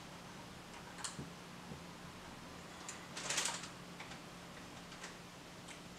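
Small plastic toy parts clicking as they are handled and fitted onto a Playmobil Ecto-1 body, with a few light clicks and a brief louder scrape just after three seconds in.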